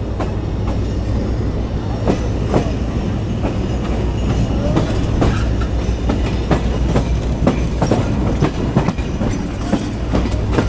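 Passenger train's wheels clattering over rail joints and switches in irregular sharp knocks, over a steady low rumble of the moving coaches.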